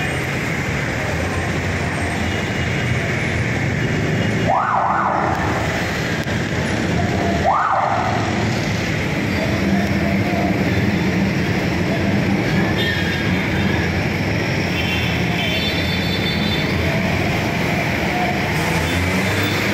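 Close street traffic: motorcycle tricycles and jeepneys running past, a steady dense engine and road noise. Two short rising whoops of a siren cut through it about four and a half and seven and a half seconds in.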